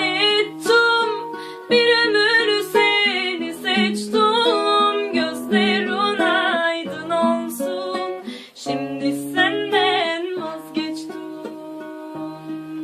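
A woman singing a Turkish song's melody in wavering, ornamented held notes without clear words, over a plucked-string accompaniment. Near the end the voice thins out and the strings play on more softly.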